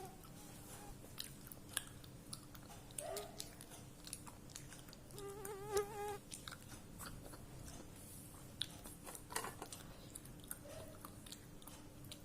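A person chewing baked clay with crisp, irregular crunches, mouth close to the microphone. A short wavering hum comes about five seconds in.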